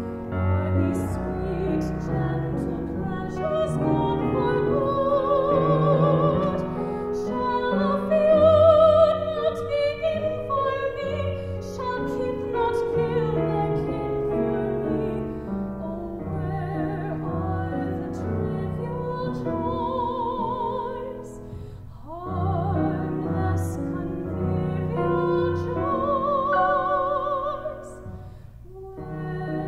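A woman singing a musical-theatre song in a classically trained style with vibrato, accompanied by a grand piano.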